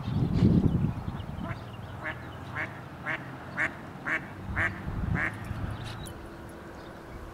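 Hen mallard quacking: a series of about eight short quacks at about two a second. A brief low rumble comes first.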